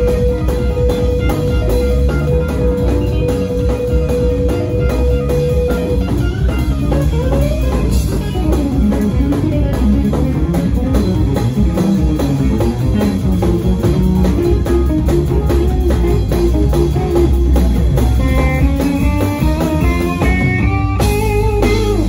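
Band music led by guitar over bass and drums: a long held guitar note for the first six seconds or so, then a melodic line with bending notes.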